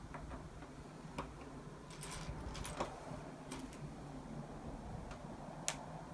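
Small plastic LEGO pieces clicking as they are handled and pressed together: a scatter of light clicks, a small cluster about two seconds in and the sharpest near the end.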